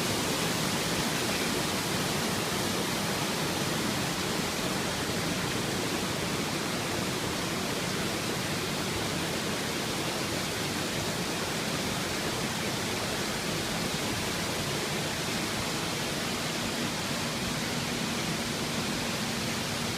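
Waterfall running with a steady, even rush of falling water.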